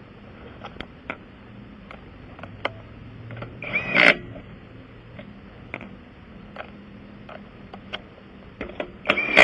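Hand tools working on a car wheel: scattered clicks and knocks, with two louder metallic clanks that ring briefly, about four seconds in and near the end.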